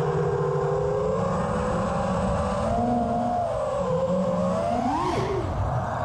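Brushless motors and propellers of a 5-inch FPV freestyle quadcopter whining, the pitch rising and falling with the throttle, climbing sharply about five seconds in and dropping straight after.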